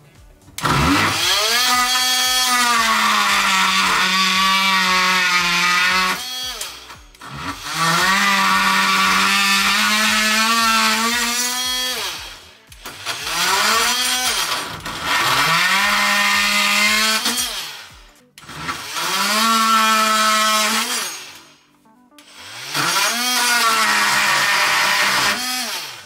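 Ryobi P343B 18V brushed cordless oscillating multi-tool cutting into a wooden board. It runs in about six separate bursts of two to five seconds each. In each burst the pitch rises as the motor comes up to speed, holds steady while the blade cuts, and drops away as the trigger is released.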